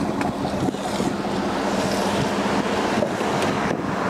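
Wind buffeting an outdoor handheld microphone, with a steady low hum underneath.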